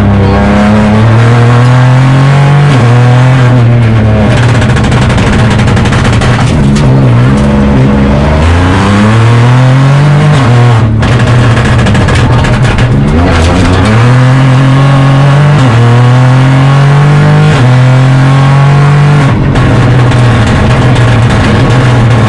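Opel Corsa Rally4's turbocharged three-cylinder engine heard from inside the cockpit at full stage pace, revving up and falling back again and again through quick gear changes and lifts as the car brakes and accelerates between corners.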